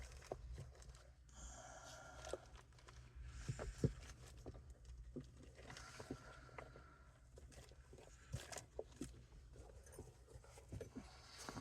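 Faint scattered clicks, light knocks and short rustles of small horn-kit parts being handled and fitted at a car's steering column.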